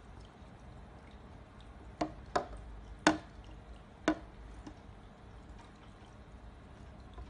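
Four short sharp taps, from a waterproof digital camera being handled under water in a small glass tank, stand out over a low steady background with faint water sounds. The taps come about two to four seconds in.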